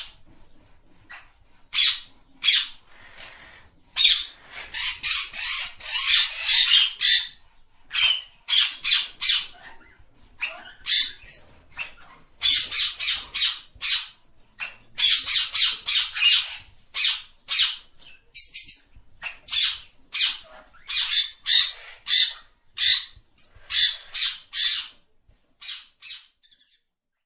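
A parrot giving a long series of harsh calls, singly and in quick runs of several, with short pauses between runs. The calls stop shortly before the end.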